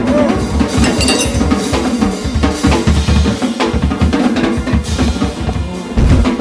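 Music driven by a drum kit: heavy bass drum and snare hits in a busy rhythm.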